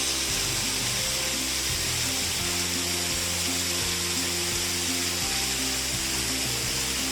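Background music of slow, held low notes over a steady, even rushing hiss of falling water from a waterfall.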